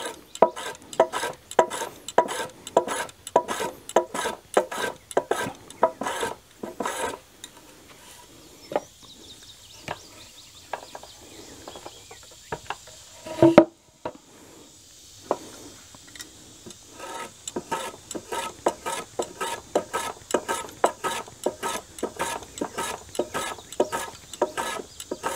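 Hand block plane, set to a light cut, shaving a chamfer on the end corner of a wooden rafter: quick rasping strokes about two to three a second, a quieter pause in the middle, then the strokes resume. A single louder knock about halfway through.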